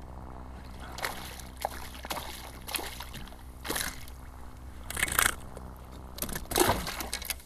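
A hooked yellow jack splashing at the surface and thrashing as it is swung out of the water onto the kayak: a string of short splashes, the loudest a little after halfway and near the end.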